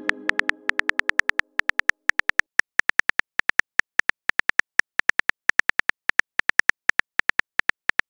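Rapid, even clicks of a phone keyboard typing sound effect, several a second, as a text message is typed out letter by letter. A message chime's ring fades out over the first two seconds.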